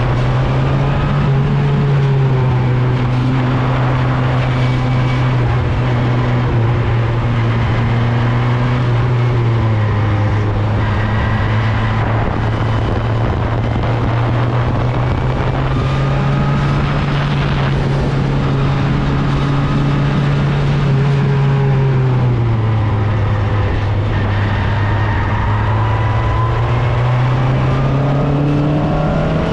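Open-wheel race car's engine running under load, heard onboard. Its pitch falls about ten seconds in and again a little past twenty seconds, as the car slows, and climbs back each time as it accelerates.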